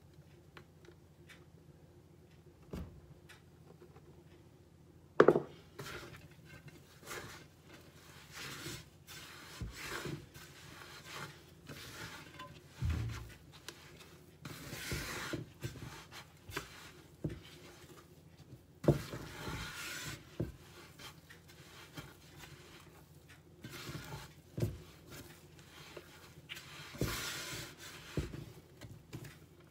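Yeast bread dough being kneaded by hand in a wide, shallow bowl: irregular rubbing, pressing and slapping sounds, starting about five seconds in with a sharp knock, the loudest sound, against the bowl.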